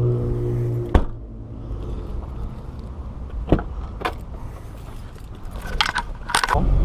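Fiat 500 rear hatch shut with one loud knock about a second in, cutting off a steady hum. Then come a few sharp clicks of the driver's door and keys, and near the end the engine starts with a low steady rumble.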